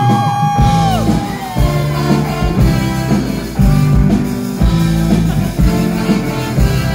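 Live rock band playing loud: electric guitar chords over drums with a regular kick-drum beat.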